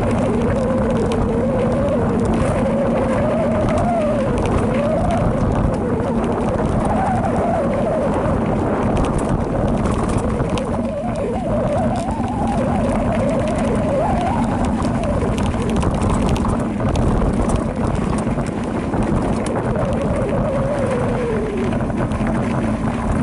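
A Specialized Rockhopper Comp mountain bike rolling down a dirt singletrack: continuous wind rush and rattling over the camera microphone, with a hum that rises and falls in pitch as the speed changes.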